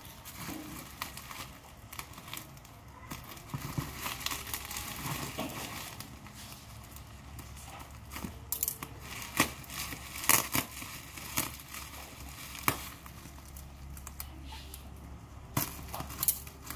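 Plastic bubble wrap crinkling and rustling as a taped parcel is cut open with scissors. Scattered sharp snips and crackles come through, mostly in the second half.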